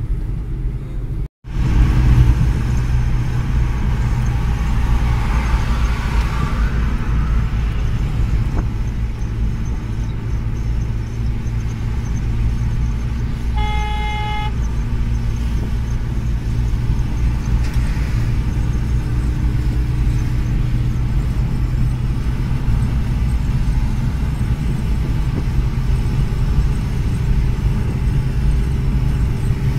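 Steady low road and engine rumble inside a moving car's cabin, cutting out for an instant about a second in. About halfway through, a vehicle horn toots once, briefly.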